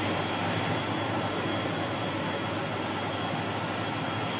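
Kelner 1400 cylinder vacuum cleaner running steadily at full power, a low hum under an even rushing noise with a faint high whine. The owner suspects its motor is partially burnt out.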